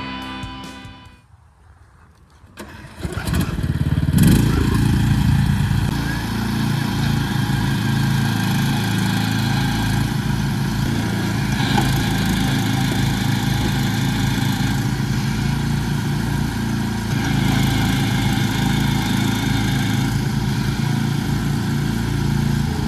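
Music fades out, then riding lawn mower engines come up to speed about three seconds in and run steadily under load as two mowers pull against each other in a tug of war.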